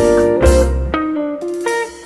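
Instrumental rock band recording led by guitar over bass and drums. There is a heavy low hit about half a second in, then a thinner passage of notes stepping down that grows quieter near the end.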